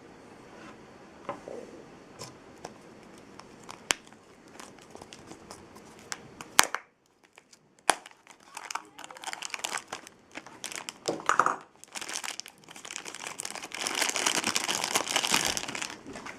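Plastic blind-bag packaging being crinkled and torn open. Scattered sharp clicks and taps come first, then a moment of silence about seven seconds in, then crinkling that builds and is loudest over the last three seconds.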